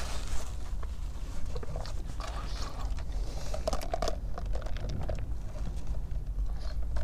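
Mouth noises of eating a sandwich, with small clicks and the crinkle of a paper wrapper, then short sips of soda through a straw from a large fountain-drink cup. A low steady rumble runs underneath.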